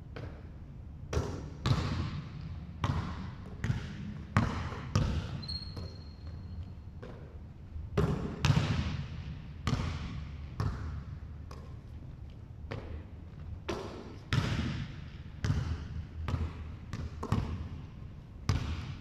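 Basketball dribbled on a wooden gym floor: sharp bounces at an uneven pace, some in quick runs, each with a short echo from the large hall. A brief high squeak about five seconds in.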